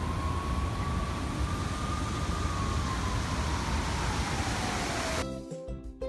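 Rushing outdoor noise with a heavy low rumble, typical of wind on a phone microphone, with a faint thin whine that rises a little and then slides down in pitch. Music cuts in abruptly about five seconds in.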